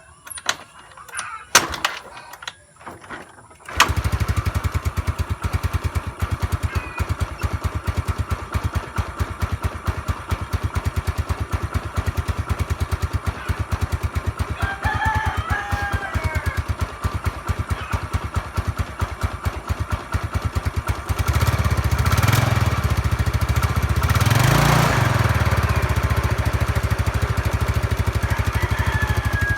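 Yamaha Mio Sporty scooter's small single-cylinder four-stroke engine, hard to start. After a few seconds of quiet broken by a few clicks, it catches about four seconds in and idles with a rapid, even firing beat. About 21 s in it runs louder and faster, with one rev rising and falling a few seconds later.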